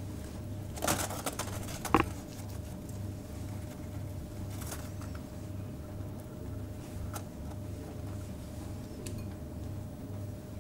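Quiet handling sounds as kitchen string is wound and tied around a rolled rabbit saddle on a wooden cutting board: a few soft rustles about a second in and a sharp knock about two seconds in, then scattered faint ticks, over a steady low hum.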